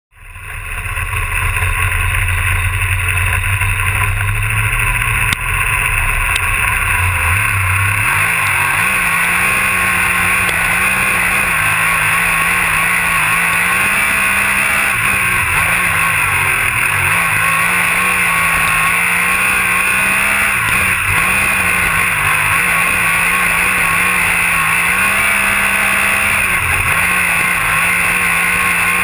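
Winged dirt-track sprint car's V8 engine, heard from a camera mounted on the car, running hard at racing speed. For the first several seconds it is a lower, steadier drone; after that its pitch climbs on each straight and dips again for each corner, over and over.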